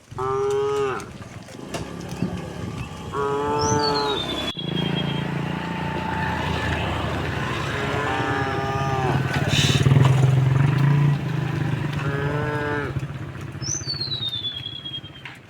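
Cattle mooing, four long moos a few seconds apart. A steady low drone runs beneath them from about a third of the way in, and a high falling whistle sounds twice.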